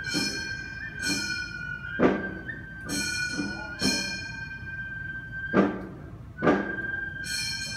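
Gion bayashi festival music being practised: a nohkan bamboo flute holds a high, sustained line while small kane hand gongs clang in quick ringing clusters and a taiko drum gives a few single sharp beats.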